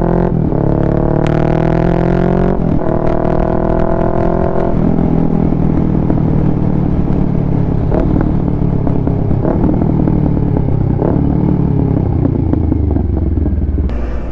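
Kawasaki Ninja 650's parallel-twin engine through a Mivv full-system exhaust, loud, accelerating hard with the revs climbing in steps through gear changes for about the first five seconds. It then settles into a steadier, lower drone broken by a few sharp exhaust crackles.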